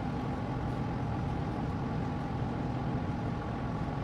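Steady mechanical hum with a few faint held tones, unchanging throughout, with no knocks or clicks.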